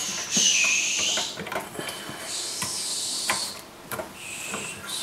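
Light clicks and taps of new capacitors and their leads being fitted into a welder's circuit board by hand. Three breathy hissing sounds of about a second each come in between.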